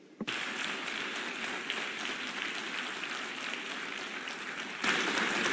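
Audience applauding in a large hall, starting suddenly about a third of a second in and growing louder near the end.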